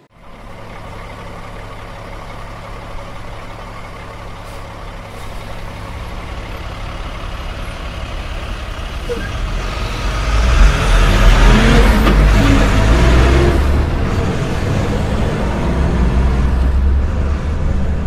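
Dump truck engine rumbling steadily, growing louder over the first ten seconds or so and then staying loud.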